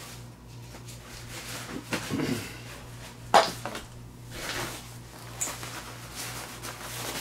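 Rustling of nylon gear pouches and stuff sacks being handled, with one sharp knock about a third of the way in as an item is set down and a few lighter clicks later.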